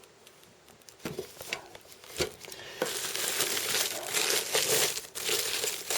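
Packaging being handled while a car stereo head unit is unpacked: a few light clicks and knocks, then from about three seconds in a steady crinkling of the wrapping.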